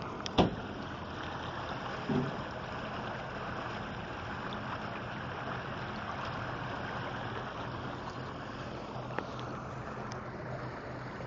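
Harbor water rushing and lapping along the edge of a wooden dock, driven by a strong tsunami surge current. A sharp knock comes about half a second in and a duller thump about two seconds in.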